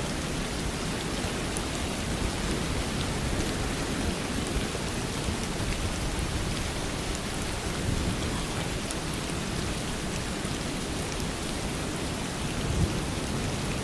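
Steady heavy rain: a dense, even hiss of falling water with a deep low rumble beneath it, swelling briefly louder about halfway through and again near the end.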